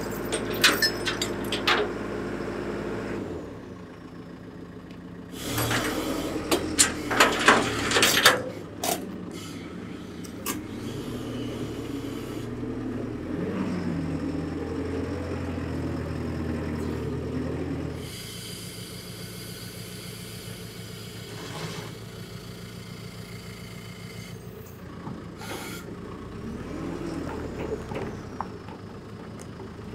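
Diesel engine of a JCB telehandler running under load as it lifts and carries a heavy log slung in chains, with bursts of metal clanking and knocks near the start and again around six to eight seconds in. About eighteen seconds in the engine drops back to a lower, quieter running.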